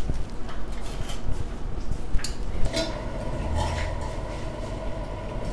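A metal spoon clinking and scraping against a steel pot as cooked rice is stirred. A steady tone comes in about halfway through.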